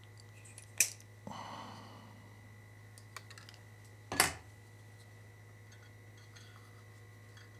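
Small parts and wire leads being handled at an electronics workbench: two sharp clicks about three and a half seconds apart, a short scraping rustle just after the first, and a few faint ticks. A steady low hum runs underneath.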